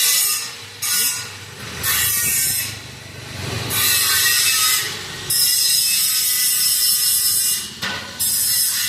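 Arc welding: a harsh crackling hiss that comes in repeated runs of one to two and a half seconds, broken by short pauses as the arc is stopped and struck again, typical of tacking and running short beads on gate hinges.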